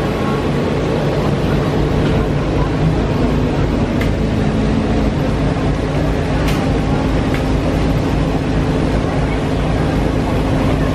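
Busy open-air market crowd ambience: indistinct crowd murmur over a steady low hum and rumble, with a couple of faint clicks.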